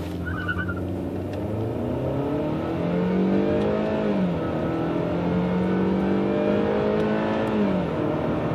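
2012 Chevrolet Malibu's 2.4 L four-cylinder engine accelerating at full throttle, heard from inside the cabin. The engine note climbs for about four seconds, drops sharply as the automatic transmission upshifts, climbs again and drops at a second upshift near the end.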